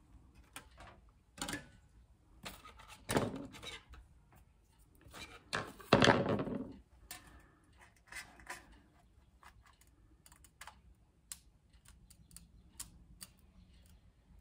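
Metal being handled on a sheet of galvanized steel: clattering and scraping as parts and a steel ruler are moved and laid on the sheet, louder about three and six seconds in, then light ticks and scratches of a marker pen drawn along the ruler.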